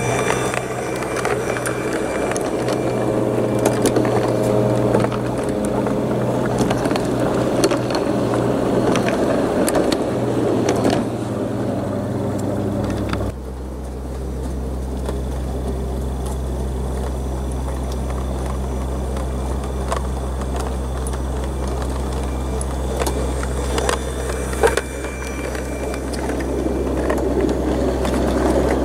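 Large-scale garden model train running on its track: a steady low hum with scattered clicks as the wheels roll over the rails. About halfway through, the hum changes suddenly to a lower one.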